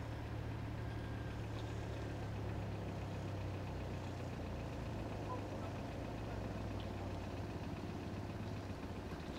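An engine idling steadily, a low even hum that eases a little in the second half.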